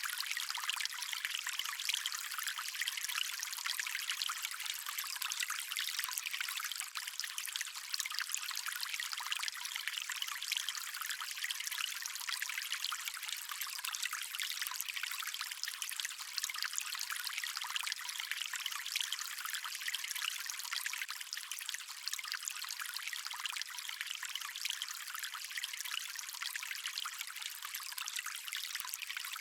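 Running water of a stream, a steady even rushing hiss that sits high with almost no low rumble.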